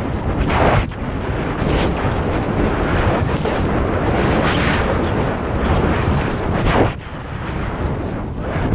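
Wind rushing over a GoPro's microphone during a fast ski descent, with the hiss of skis sliding on packed snow swelling in several surges as the skier turns.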